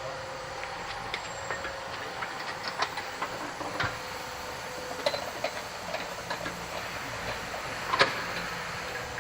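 Irregular metallic clinks and knocks of hand tools and parts being worked on a car's rear axle, over a steady faint hum, with one louder clank about eight seconds in.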